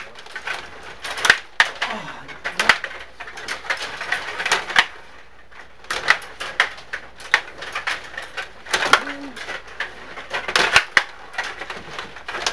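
Table hockey game in play: quick, irregular clacking and knocking as the players' rods are twisted and slid and the puck strikes the figures and boards, with a short lull around the middle.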